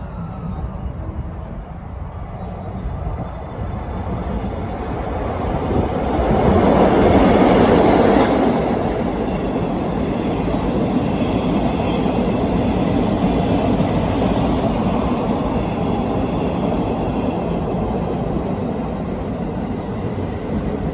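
A freight work train carrying long welded rails running through a station without stopping. The rumble builds to its loudest about seven seconds in, then the wheels of the long string of rail wagons run on steadily.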